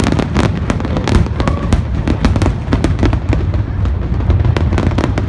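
Aerial fireworks going off in a dense barrage: many sharp bangs and crackles a second, overlapping on a continuous low rumble.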